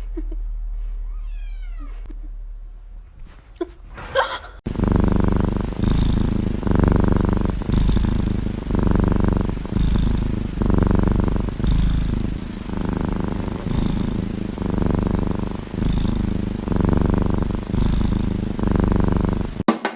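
Cat purring loudly right at the microphone, swelling and easing in steady cycles of about two seconds as it breathes in and out, starting about four seconds in.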